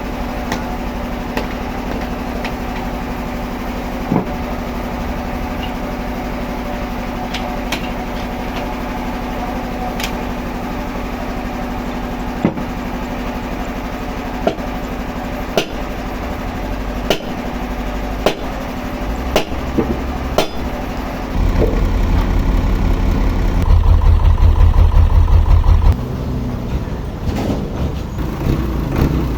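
Heavy machinery engine running steadily, with scattered sharp knocks and clanks. About two-thirds of the way through it grows louder and deeper, with a rapid pulsing rumble for a couple of seconds before easing back.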